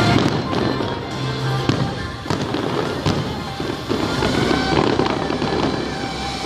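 Fireworks going off in a run of sharp bangs, with show music playing underneath.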